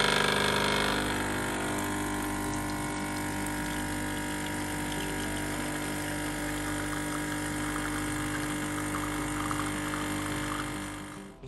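Espresso machine pump humming steadily while it pushes water through the portafilter to brew a coffee. It is louder for the first second, then holds steady, and dies away about eleven seconds in.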